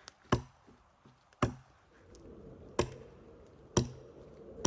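A hammer driving a steel wedge into a heavy wooden beam, struck hard about once a second.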